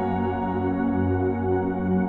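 Slow ambient new-age music: a chord of sustained, held tones that stays steady, with no new note struck.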